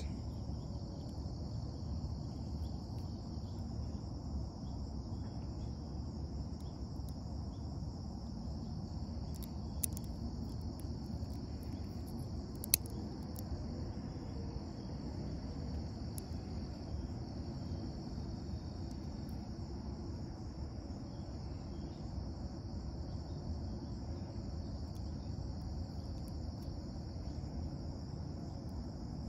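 Steady high-pitched insect chirring over a low rumble of outdoor background noise. Two brief sharp clicks come about ten and thirteen seconds in.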